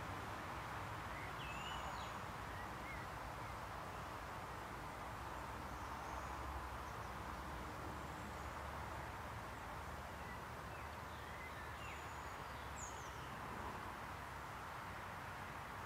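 Distant birds calling: scattered short high chirps and whistles over a steady background hiss and low rumble.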